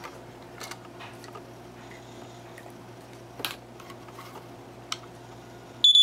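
Light handling sounds of a plastic smoke detector: a few soft clicks and taps as it is turned over. Right at the end its test button is pressed and the Sunbeam 4551 ionization smoke detector's alarm sounds, a loud shrill beep that is the loudest thing heard.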